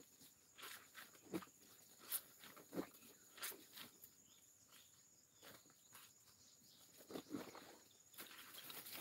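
Laundry being hand-washed in a plastic basin: a wet garment is lifted, squeezed and dropped back into the water, giving soft, irregular splashes and squelches. Insects, such as crickets, hum steadily and high in the background.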